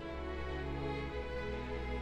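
Slow, sad orchestral music with strings holding long notes over a sustained low bass.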